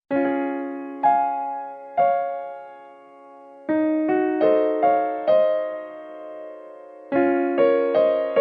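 Soft background piano music: slow chords and single notes struck and left to ring, with a quicker run of notes about four seconds in.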